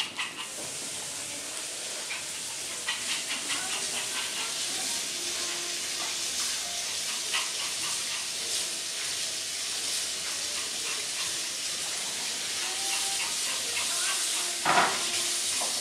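A steady hiss throughout, with scattered light clicks of a Yorkshire terrier's and a kitten's claws on a tiled floor, and one brief louder sound near the end.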